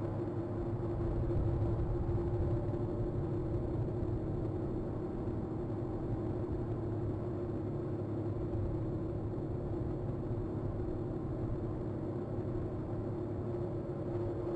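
Steady low rumble and hiss of outdoor background noise, with a constant hum.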